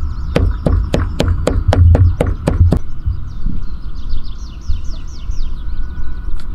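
Heavy cleaver chopping raw meat on a wooden stump block: about ten fast, sharp chops at three to four a second, stopping about three seconds in. After that, birds chirp in quick runs of short falling notes.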